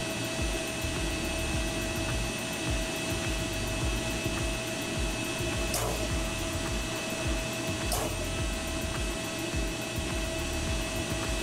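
CHIKO fume dust collector running: a steady machine rushing noise with a few steady tones, as its air stirs zeolite powder up from the dust tray onto the filters. Two brief clicks, about six and eight seconds in.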